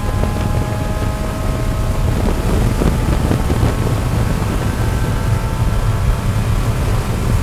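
Race car engine at full throttle, held near 6,500 rpm and climbing slowly as the car accelerates, heard from inside the cabin with wind and road noise.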